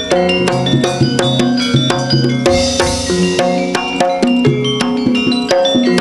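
Traditional East Javanese percussion ensemble music: drums and tuned gongs playing a quick, even, repeating pattern of struck notes.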